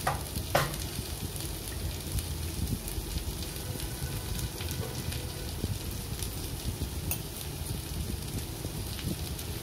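Black chickpeas and spices sizzling steadily in hot oil in a kadhai, with a couple of light clicks.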